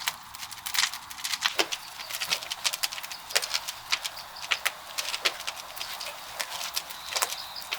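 Wood fire crackling in the firebox of a traditional Korean wood-fired kiln: a dense, irregular run of sharp pops and snaps over a steady hiss.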